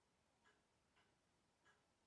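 Faint ticking of a Nomos Glashütte watch's ETA 7001 hand-wound movement running, its balance wheel newly replaced: three light ticks roughly half a second apart.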